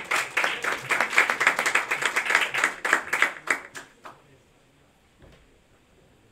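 Audience applauding: many hands clapping together, thinning out and stopping about four seconds in.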